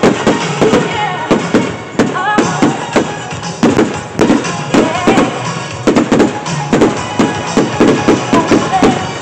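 A rapid, continuous run of firework bangs and crackles, about two or three loud reports a second, with music playing underneath.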